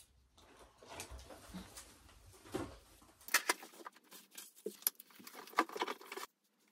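Light rustling and handling noise from a tinsel garland being worked onto a felt Christmas tree, with scattered soft clicks.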